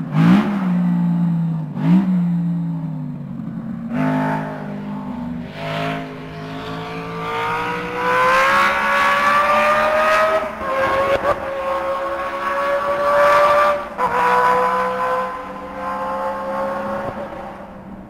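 BRM V16 Mk2 racing car's 1.5-litre twin-supercharged V16 engine: two quick throttle blips, then revving up steadily with the pitch rising. The pitch drops sharply twice, about ten and a half and fourteen seconds in, before the sound fades near the end.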